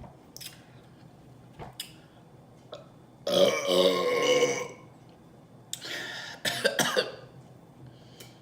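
A woman burping after chugging Coca-Cola, the burps brought up by the cola's fizz: one long, loud burp about three seconds in, then two shorter burps close together around six and seven seconds. A few faint clicks come before the first burp.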